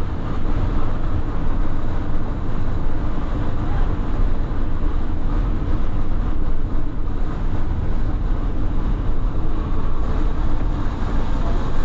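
Steady road and engine noise inside the cabin of a Mercedes minibus driving on a snow-packed road: a deep, even rumble with a hiss above it and no distinct events.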